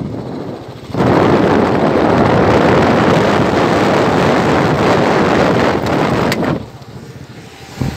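Wind buffeting the microphone on a moving motorbike: a loud, rushing noise that starts about a second in and falls away near the end.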